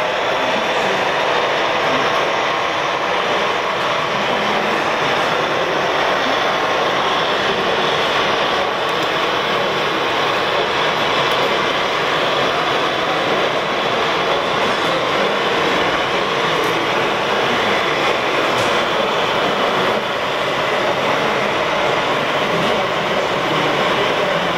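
Gauge 1 model train, a steam locomotive hauling tank wagons, running along metal track: a steady rolling noise with no breaks.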